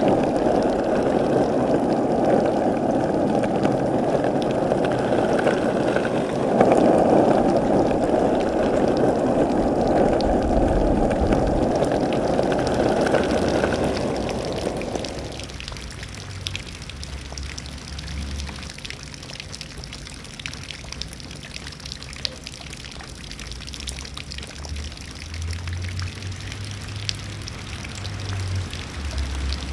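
Running water with a steady rushing sound, loud for about the first half, then dropping to a quieter trickle with scattered small ticks.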